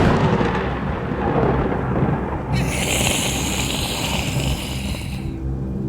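A thunderclap opening into a long rolling rumble of thunder. About two and a half seconds in, a high hiss like heavy rain comes in for roughly three seconds and stops, and a low steady musical drone begins near the end.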